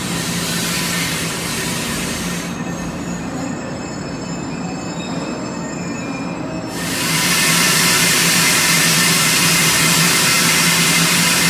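Metro-North push-pull commuter train, cab car leading, rolling slowly into the platform, with a steady low hum under it and thin wheel squeal in the middle. From about seven seconds in, a loud, steady hiss takes over as the train draws up alongside.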